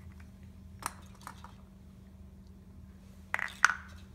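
Small plastic toy figures handled and set down on a metal tray: a few light clicks about a second in, then a louder cluster of clinks near the end, over a steady low hum.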